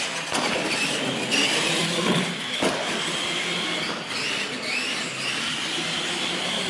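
Two electric R/C monster trucks racing flat out: the motors and gears whine, the pitch wavering as they speed up and ease off, over a steady rush of running noise, with a couple of short knocks about two seconds in.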